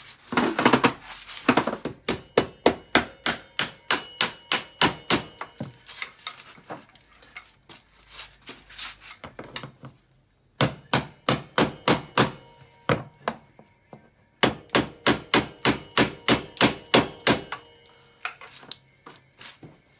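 Hammer blows driving the swingarm pivot tube of a 200–250 cc ATV through its newly fitted bushings. The strikes come in three runs of quick blows, about three to four a second, each with a short metallic ring, with pauses between the runs.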